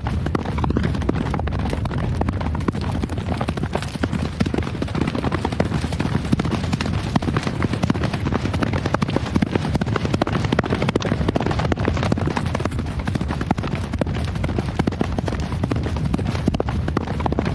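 Horse hooves galloping: dense, continuous hoofbeats without a pause.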